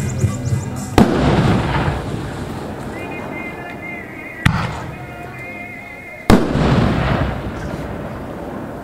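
Consumer aerial fireworks exploding overhead: three loud bangs about a second, four and a half seconds and six seconds in, the first and last the loudest, each trailing off over a second or so.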